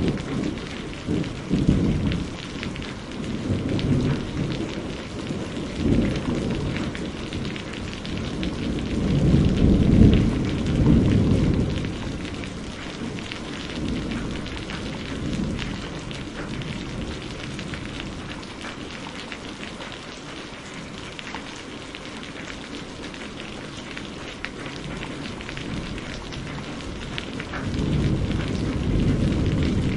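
Steady rain with rolling thunder rumbling low. The loudest peal comes about ten seconds in and dies away, leaving mostly rain for a while, before thunder builds again near the end.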